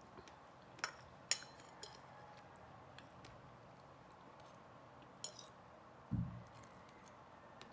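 Metal fork clinking against a plate while eating cake: a few sharp, ringing clicks, three close together early and one more later, then a soft low thud near the end.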